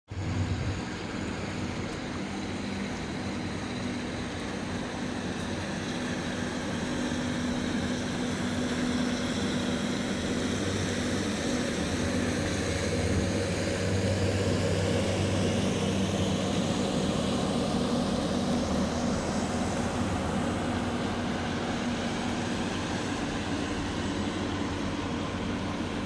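Steady engine drone with a low hum over a rushing noise, growing slightly louder toward the middle.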